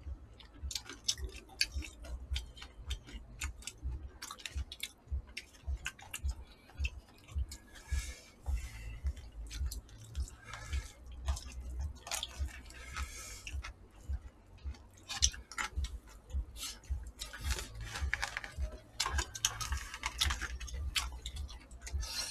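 Close-miked eating sounds: many small irregular clicks and taps of chopsticks against disposable plastic food containers, with chewing and a few short slurps of noodles.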